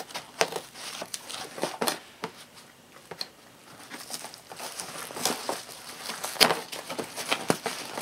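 Scissors cutting into a cardboard shipping box, and hands tearing and handling the cardboard: irregular sharp clicks and crackles, with a quieter lull about three seconds in.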